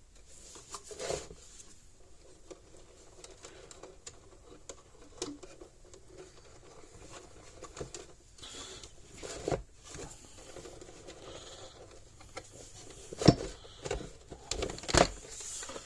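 Parts of a solar fence charger being handled and slid back into its housing: scattered light clicks, taps and rubbing, with a few sharper knocks near the end.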